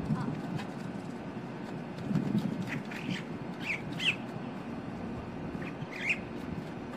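Female boat-tailed grackle singing: short, high notes in small clusters, about three seconds in, again around four seconds, and once more near six seconds.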